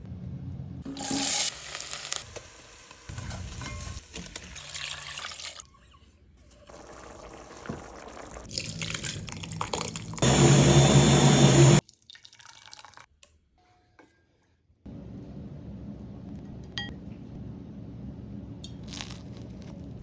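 A run of short cooking sounds in a kitchen, cut back to back, with liquid sounds among them. The loudest is a dense rushing burst lasting about a second and a half just past the middle. After a brief near-silent gap comes a steady low noise that runs on to the end.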